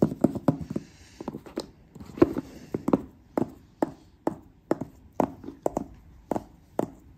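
Fingertips and nails tapping on a cardboard iPhone 11 box: quick, irregular taps, with a brief scratching brush over the box surface about one and two seconds in.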